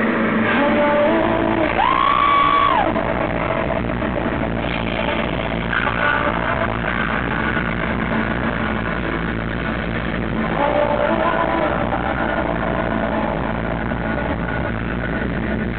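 Rock concert intro music over an arena sound system, heard from within the crowd, with shouts and held cries from the audience. The sound is dull, with no treble above the upper midrange.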